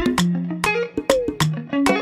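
Background music: short plucked notes over low bass notes, with a steady beat.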